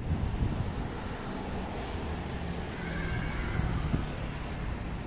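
Steady low background rumble of ambient noise, with no single clear source standing out.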